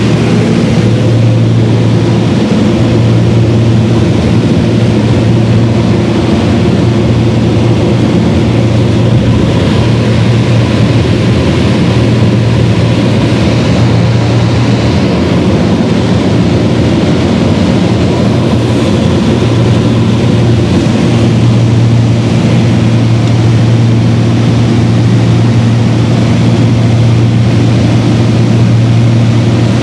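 A Beechcraft Baron's twin piston engines and propellers give a loud, steady drone heard from inside the cabin in cruise flight.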